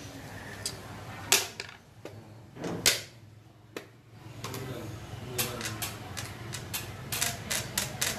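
Xiangqi pieces clacking on a wooden board and table: two sharp clacks of a move being made and the chess clock pressed, then from about halfway a run of lighter clicks, several a second, of pieces knocking together.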